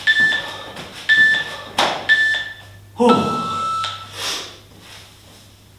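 Seconds interval-timer app beeping: three short high beeps about a second apart, then one longer, lower beep, marking the end of a work interval. A single thump comes between the beeps, and a loud breath follows the last one.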